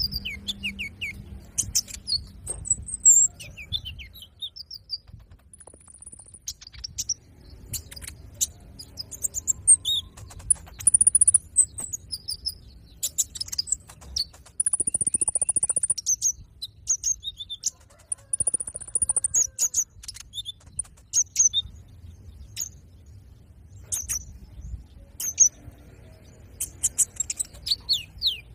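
Caged sunbird (konin) calling and singing in a lively run of rapid, very high-pitched chirps and flicked notes, broken by a few longer held high whistles.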